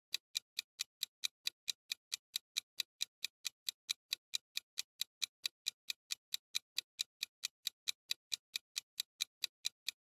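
Countdown timer sound effect: steady clock-like ticking, about five ticks a second.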